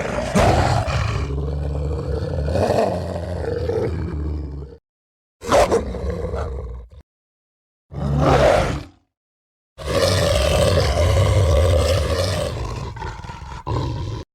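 Designed werewolf roar sound effects: four separate rough, low roars with dead silence between them, long, short, short, then long again.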